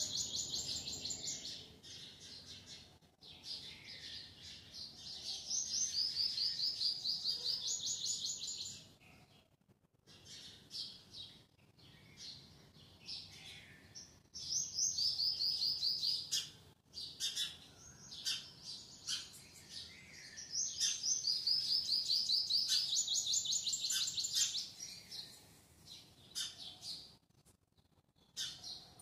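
Small birds chirping in fast, high trills that come in runs of a few seconds, with quieter stretches in between.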